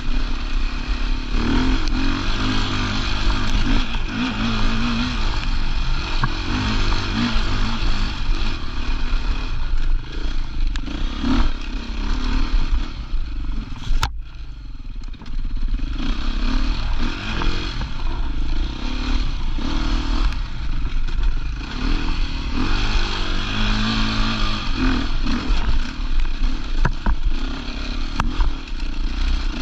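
Off-road rally motorcycle engine running hard, its pitch rising and falling with the throttle and gear changes, with a sharp click and a brief drop in level about 14 seconds in.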